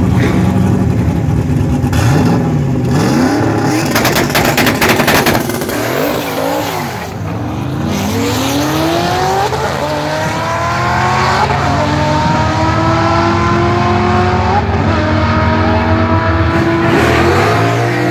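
Fox-body Ford Mustang drag car running hard at the line, then launching and accelerating down the strip through a manual gearbox. The engine pitch climbs, drops at each of several gear changes and climbs again, easing as the car pulls away.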